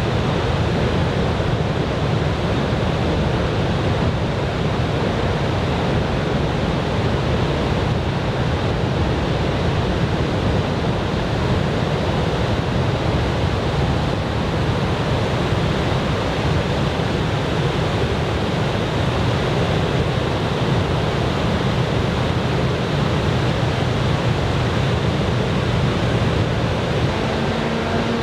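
Steady roar of surf breaking on a beach, the sea raised by a typhoon swell.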